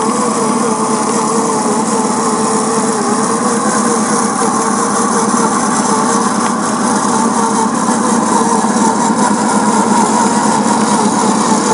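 A 1/10 scale RC crawler's 55-turn electric motor and spur-and-pinion gears whining steadily as it drives, the pitch wavering early on and the sound growing a little louder in the second half, with tyres crunching over loose gravel.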